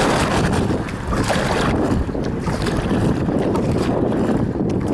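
Wind buffeting the microphone on a moving sea kayak's deck, a loud low rumble, with water rushing and splashing along the hull in repeated swishes as the kayak runs before a following wind.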